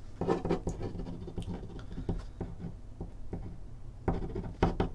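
Quiet handling noises at a desk: light scratching with scattered small clicks and taps, in a cluster just after the start and again near the end.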